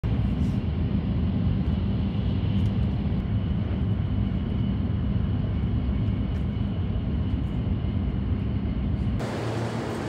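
Steady low rumble of a vehicle in motion. About nine seconds in it cuts abruptly to a different, hissier background.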